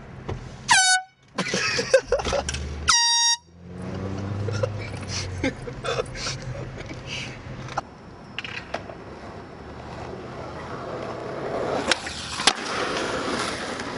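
Two short air horn blasts, the first about a second in and the second, slightly higher and about half a second long, a couple of seconds later; then the steady running noise of the car.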